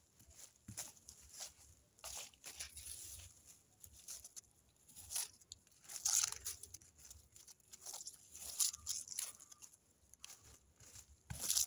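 Dry leaves and weeds crunching and rustling in irregular bursts as the ground vegetation is disturbed.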